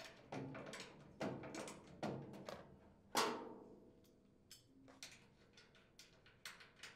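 Hand tools on steel nuts and bolts: a wrench and socket clinking and tapping against the metal plate as nuts are unthreaded, in irregular knocks and clicks. The loudest is a ringing metal clink about three seconds in, followed by lighter ticks.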